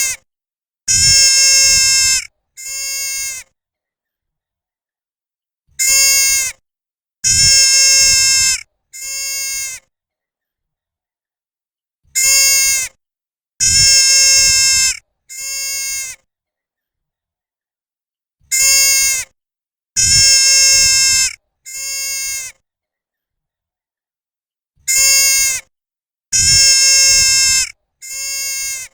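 Deer fawn bleating in sets of three calls: a short one, a longer one, then a softer short one. The same set repeats about every six seconds, with silence between.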